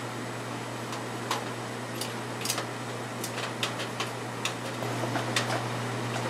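A dozen or so sharp, irregular light clicks of a screwdriver and small screws or parts against the wing's landing-light bulkhead, over a steady low hum.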